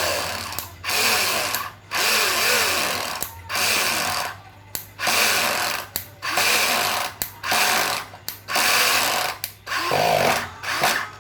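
Electric hand drill with a rewound motor run in about ten short trigger pulses, each spinning up and winding back down, as the motor is test-run.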